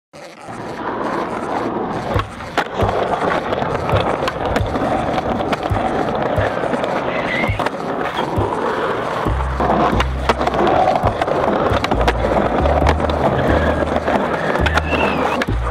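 Skateboard wheels rolling on pavement, with scattered sharp clacks of the board, under music whose pulsing bass line comes in about nine seconds in.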